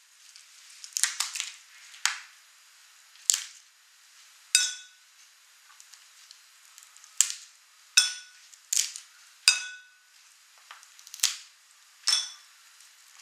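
Shell of a cooked crab cracking and snapping as its legs and claws are broken off by hand: about ten sharp cracks at irregular intervals.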